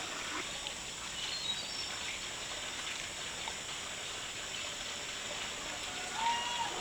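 Steady outdoor background hiss with a few faint, short bird chirps.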